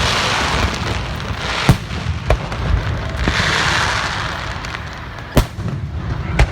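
Fireworks going off: several sharp bangs, the loudest about five seconds in, over a steady low rumble, with two longer spells of hissing crackle.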